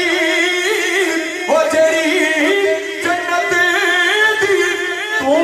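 A man singing a naat into a microphone through a loudspeaker, drawing out long wavering, ornamented notes.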